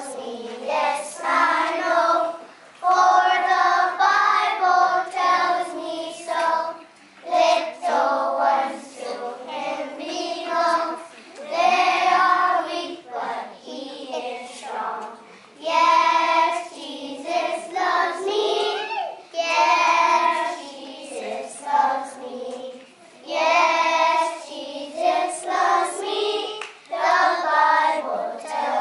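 A group of preschool children singing a song together, phrase after phrase with short breaks between the lines.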